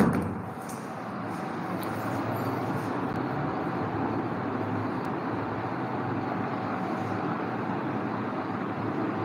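Steady rushing rumble, like road traffic, that starts suddenly with a bump and holds at an even level.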